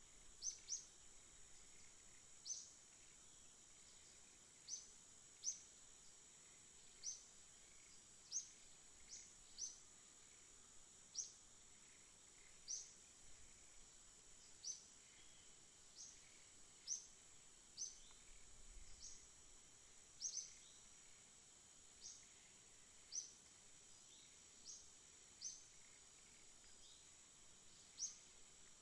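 Songbird chirping: short, high calls, each a quick downward sweep, repeated irregularly about once a second. A faint, steady high-pitched tone runs underneath.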